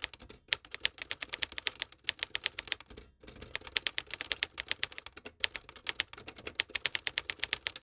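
Typing sound effect: rapid key clicks, about ten a second, with a few short pauses, keeping time with the text appearing letter by letter; it cuts off suddenly at the end.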